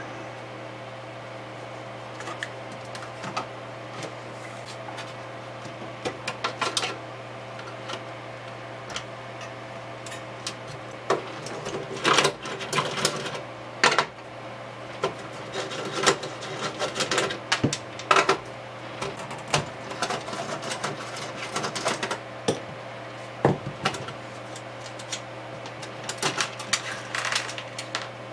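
Hand screwdriver backing screws out of a rack synthesizer's steel chassis, with irregular clicks, scrapes and small metal rattles as screws and washers are handled and set down, coming in clusters. A steady low hum runs underneath.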